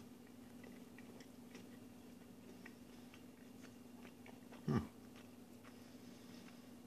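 A person chewing food close to the microphone: soft scattered mouth clicks and crunches over a steady low hum, with one short vocal sound about two-thirds of the way through.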